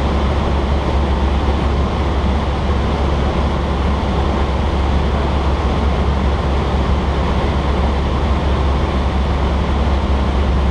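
Cessna 152's four-cylinder Lycoming engine and propeller droning steadily in cruise, heard inside the cabin with air rushing over the airframe.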